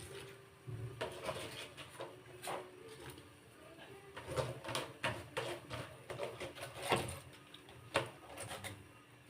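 Irregular light knocks, clicks and rubbing sounds of hands handling objects, with two sharper knocks near the end.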